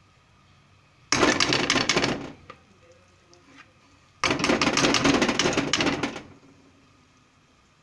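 A metal spoon scraping solid ghee against an aluminium pan, two bouts of fast rattling clicks, each a second or two long, about three seconds apart.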